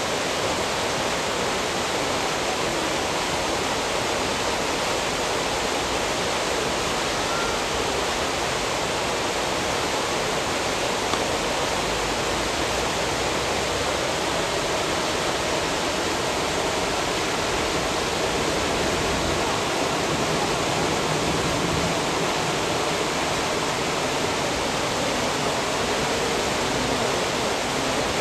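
Steady rush of turbulent, foaming water.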